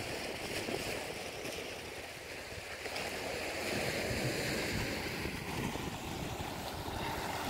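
Sea waves washing and breaking against a rocky shore, a steady surf that swells a little about halfway through.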